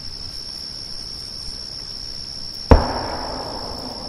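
One sudden, very loud explosive bang about two-thirds of the way through, echoing and dying away over a second or so. Steady high chirring of night insects runs underneath.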